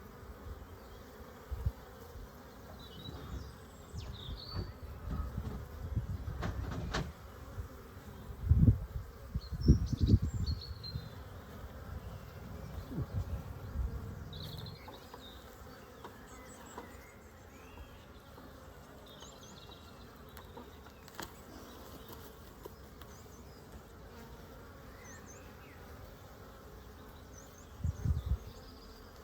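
Honeybees buzzing around an open hive as it is worked, with a few loud low thumps, the loudest around a third of the way in and another near the end.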